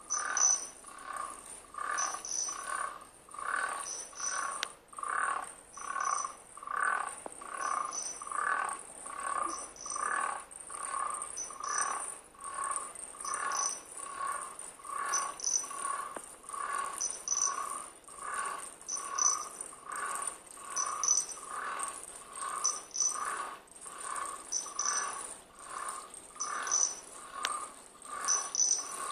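Foley imitation of cricket chirping: short chirps repeating evenly about twice a second, with higher, thinner chirps about once a second over a faint steady high hiss.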